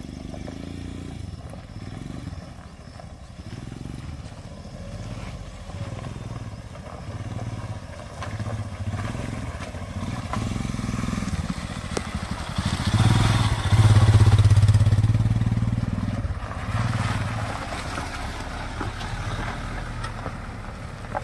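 A motorcycle and a Mahindra Thar SUV drive slowly up a rough dirt track and pass close by. Their engines grow louder as they approach, peaking about two-thirds of the way through as the motorcycle goes past. The Thar's engine then rolls by close near the end.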